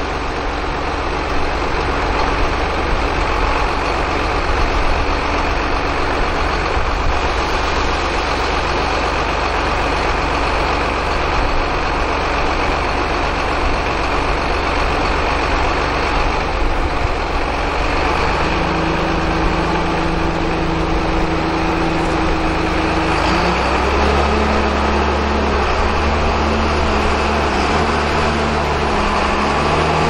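John Deere 8400 tractor's diesel engine running steadily, with a steady rushing noise over it, as the grain cart's auger unloads corn into a truck trailer. A little past halfway a new steady hum comes into the engine sound and shifts to another note a few seconds later.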